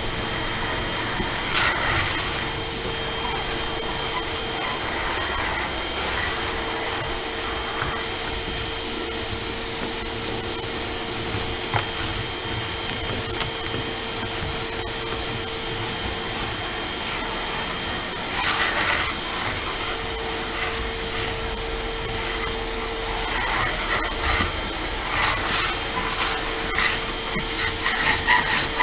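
Shop vacuum running steadily with a motor whine, its floor nozzle worked over a bare boat deck. Bursts of crackling and scraping come about two seconds in, again about eighteen seconds in, and through the last few seconds.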